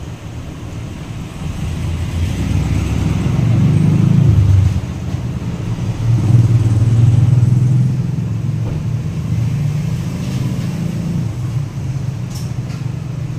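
A motor vehicle engine running with a low, steady rumble, swelling louder about three to four seconds in and again around six to eight seconds in.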